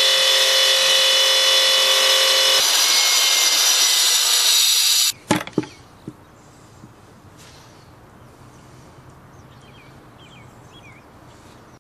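A power saw running with a steady high whine for about five seconds, then cutting off abruptly, typical of slate tile being cut for a tiling job. A few faint clicks and short chirps follow in the quiet.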